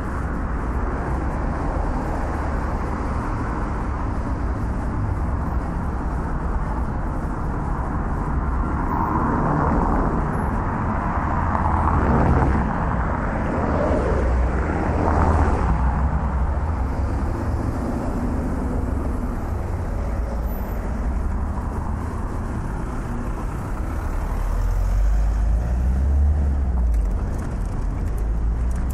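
City street traffic: cars driving past on a busy avenue over a steady low rumble, swelling louder twice in the middle as vehicles pass close by.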